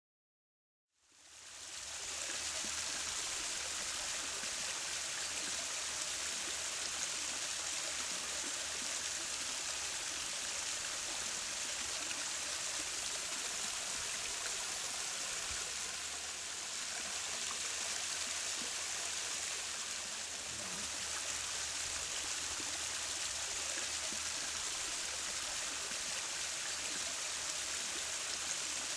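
Water from a raised spa spilling over a brick spillway into a swimming pool: a steady splashing rush that fades in about a second in.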